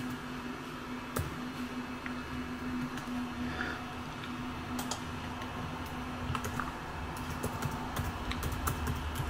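Keys being typed on a computer keyboard while a password is entered: irregular runs of sharp clicks, thinning out in the middle and picking up again near the end, over a steady low hum.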